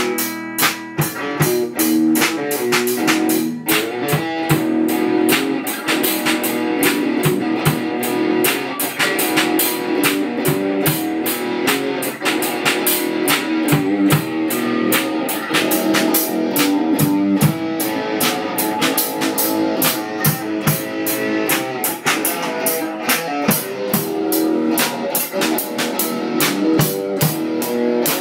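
Guitar and drum kit playing together in a live jam, the drums keeping a steady fast beat under sustained guitar notes.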